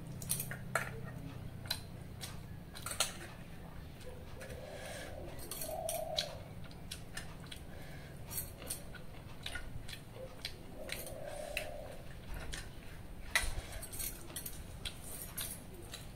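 Scattered light clicks and clinks of steel plates and bowls and wrist bangles as rice and fish are eaten by hand, irregular taps a second or so apart, the sharpest about three-quarters of the way through.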